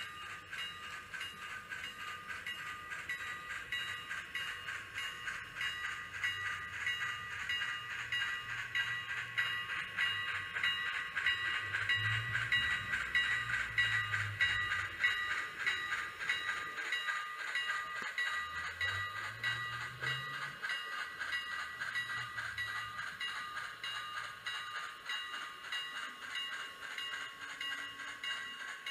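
N scale model steam locomotive running on the layout's track, its sound decoder playing steam locomotive sounds through a tiny onboard speaker: a steady, thin, high-pitched sound with a quick pulsing rhythm.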